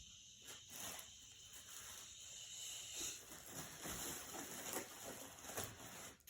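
Faint steady hiss with a few soft rustles and light taps.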